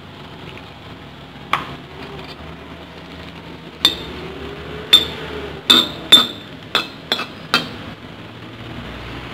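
Metal spatula clanking and scraping against a steel wok while stirring vegetables: about eight sharp, ringing clinks, coming faster in the second half.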